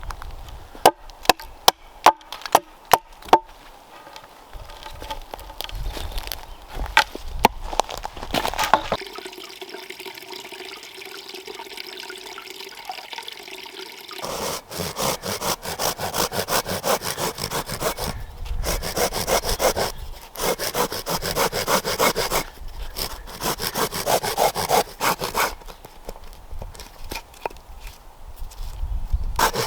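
Wood being worked by hand: a quick series of sharp chopping knocks in the first few seconds, then from about halfway on a hand saw cutting through wood in repeated runs of rasping strokes.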